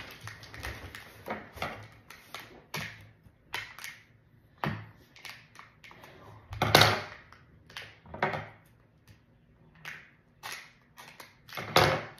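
Scissors prying and cutting at a hard plastic toy container, with hands handling it: irregular clicks, taps and scrapes. The two loudest knocks come a little past halfway and near the end.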